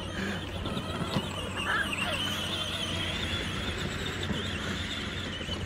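Power Wheels ride-on toy truck running on an 18-volt Ryobi drill battery, its electric drive motors and gearboxes whining as it drives over grass. The faint high whine wavers in pitch and rises about two seconds in, over a low steady hum.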